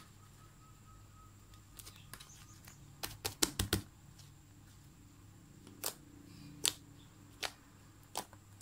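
Slime being kneaded and pressed by hand, giving short sharp clicks and pops: a quick run of four or five about three seconds in, then single pops every second or so.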